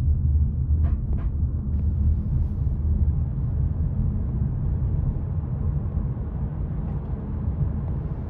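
Steady low rumble of road and tyre noise inside the cabin of a moving Apollo Go robotaxi, with a couple of faint ticks about a second in.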